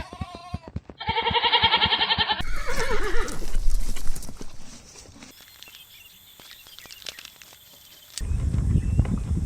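A string of animal sound clips: a quick run of hoof-like clicks, then a horse whinnying in one quavering call of about a second and a half, followed by a falling call. After a quieter stretch, a loud low rumble starts near the end.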